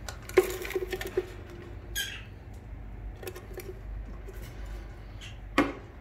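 Caged budgerigars calling: a cluster of sharp squawks near the start, a falling chirp about two seconds in, a few shorter calls, and another loud squawk near the end.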